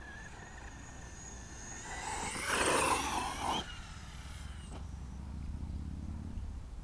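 Traxxas E-Revo brushless RC truck driving flat out: a high electric-motor whine builds, then swells into a loud rush of motor and tyres on dirt as it goes by about two and a half to three and a half seconds in. After that the sound falls back to a lower rumble.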